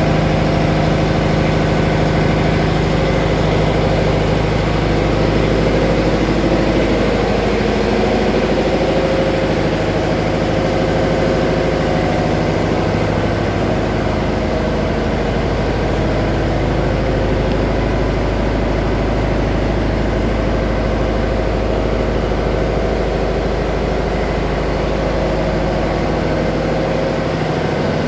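Engines running steadily in a cargo ship's engine room: a loud, even machinery drone with a deep hum.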